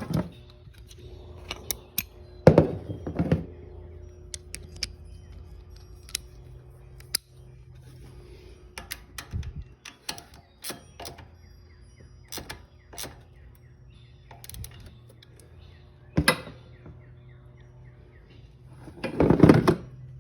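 Scattered sharp metallic clicks and knocks from hand tools and parts being worked on the ATV, with a few heavier thumps, the loudest near the end.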